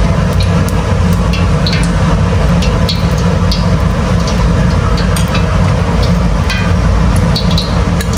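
A metal spoon stirring thick batter in a glass bowl, with scattered light clicks and scrapes, over a steady low rumble.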